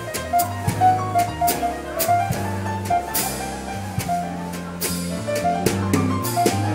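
Live jazz quartet of saxophone, piano, electric bass guitar and drum kit playing a ballad: a melody line over held bass notes, with regular cymbal strikes from the drums.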